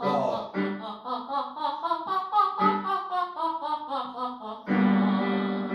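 A woman singing a double nine-note scale staccato in solfège, quick short detached notes stepping up and then back down, a diaphragm-support exercise. An electronic keyboard accompanies with struck chords, and a louder held chord comes in near the end.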